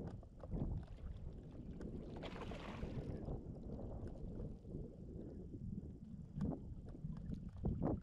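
Wind buffeting the microphone and water lapping around a float tube, with scattered light clicks and a short hissing rush about two seconds in.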